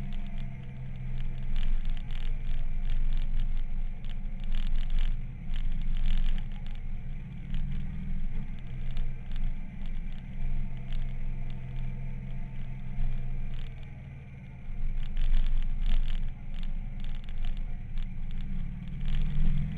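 Motorcycle engine running at road speed on a downhill ride, heard from a camera mounted behind the windscreen, with irregular scratchy crackles from wind and vibration on the camera. The engine sound drops briefly about two-thirds of the way through and then picks up again.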